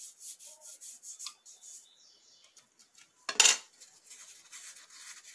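Small EVA foam petals being rubbed and scraped against the metal soleplate of a hot upturned clothes iron as they are handled and shaped, a string of short scratchy strokes, with one much louder brief noise about three and a half seconds in.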